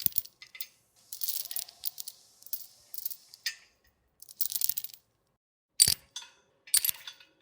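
Metal chains rattling and clinking in a string of short separate takes with brief gaps between them, and a louder clank about six seconds in.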